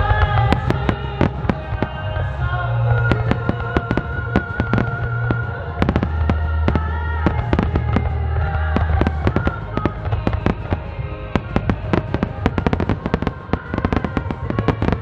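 Fireworks barrage (starmine) firing in rapid succession: a dense run of sharp bangs and crackling bursts. Music with a held melody and deep bass plays under it.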